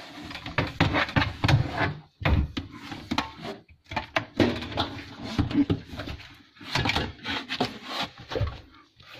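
Plastic bottles and containers in an under-sink cupboard knocked and shuffled about by hand, a run of irregular knocks, clatters and rustles.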